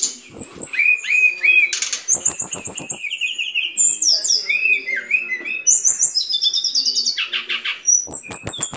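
Brown-chested jungle flycatcher (sikatan rimba dada coklat) singing a rapid, busy song of high chirps and fast trilled runs, with short groups of sharp clicks in between.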